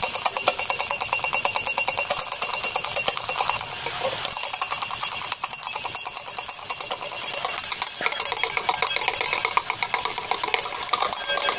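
Electric hand mixer running steadily, its beaters whipping egg whites for meringue and clicking rapidly against the bowl.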